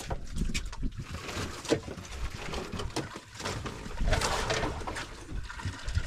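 Wind rumbling on the microphone and water sloshing around a small outrigger boat, with a few light knocks and a louder rush of water noise about four seconds in.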